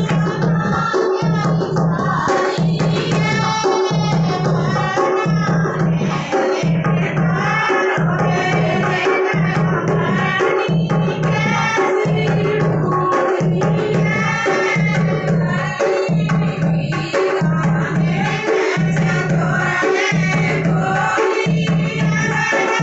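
Dholak drum played in a steady folk rhythm, a deep bass stroke about once a second, under women singing a folk song together with hand claps.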